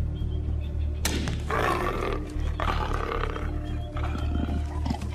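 A dart rifle fires with a sharp crack about a second in, then a leopard, hit by the dart, growls angrily twice, over low background music.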